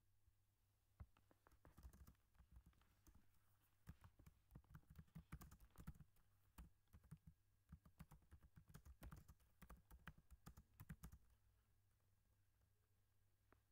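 Computer keyboard being typed on: a quick, irregular run of faint keystroke clicks that starts about a second in and stops a couple of seconds before the end.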